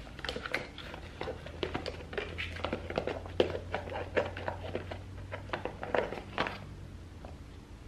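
Irregular light clicks and taps, as of small objects being handled close to the microphone, with a low steady hum through the middle.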